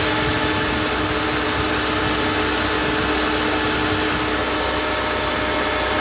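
Rover 45 engine idling while its electric radiator cooling fans run flat out with a steady whir. The fans are stuck on and will not stop even with the fan switch plugged back in.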